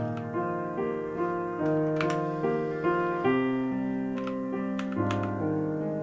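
Piano music with sustained notes that change every half second or so, and a few sharp clicks over it.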